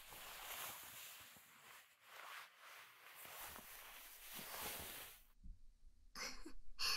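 Fabric rustling for about five seconds as the listener's head turns over to present the other ear in an ear-cleaning session, followed by two short breathy sounds near the end.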